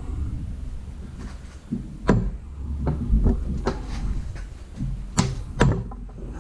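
Sharp metal clicks and knocks, a few seconds apart, as a ball joint press is tightened to force a new ball joint into an upper control arm, over a steady low hum.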